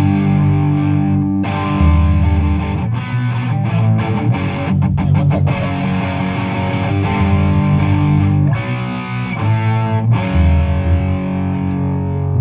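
Live punk rock band playing an instrumental stretch: distorted electric guitars over bass and drums.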